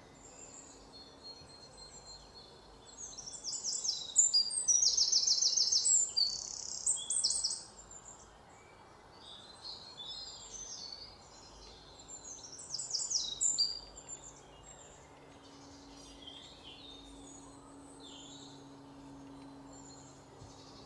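Birds chirping and singing in quick repeated high phrases, busiest a few seconds in and again about two-thirds of the way through.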